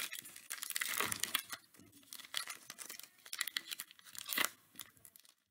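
A foil trading-card pack being torn open by hand. The wrapper tears and crinkles in several short, irregular rustles.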